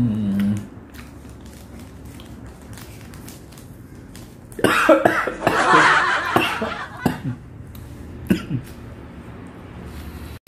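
A person coughing and sputtering for about two seconds after inhaling the fine powder of mikmik candy, with one more short cough a little later. A brief hummed "mm" comes at the very start.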